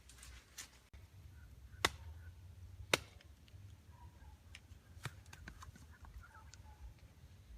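A few sharp snaps or clicks, the two loudest about two and three seconds in and smaller ones later, over a low rumble, with faint short chirps in the background.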